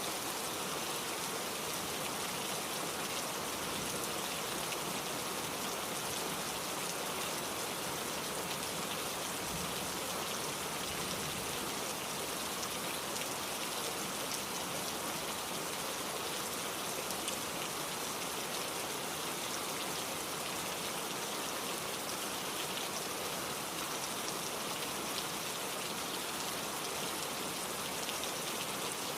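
Steady rain falling, an even, unbroken patter of drops on a surface.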